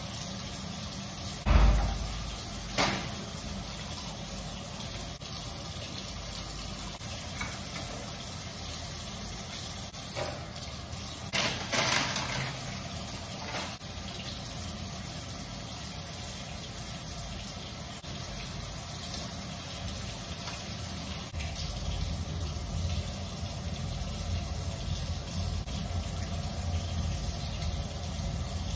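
Bathroom sink tap running steadily, with a few short knocks or clatters at the basin about one and a half seconds in, near three seconds, and around twelve seconds.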